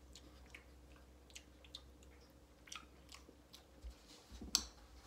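A person chewing a mouthful of scrambled eggs, faint, with scattered small clicks and one sharper click a bit after four seconds in.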